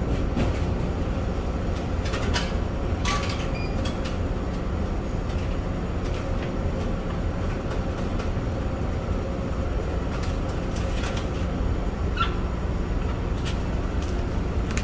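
Steady low drone of the ferry's engines and machinery heard on the passenger deck, with a few scattered clicks and clunks from a vending machine being operated and a packaged meal being taken out of its slot.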